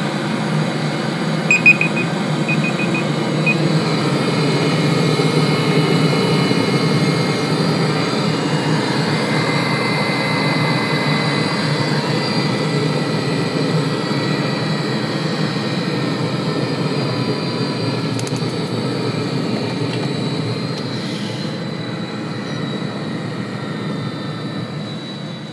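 Webasto diesel water heater running lit on the bench: a steady combustion-blower and burner rumble with a whirring hiss. A few short high-pitched beeps come about two seconds in.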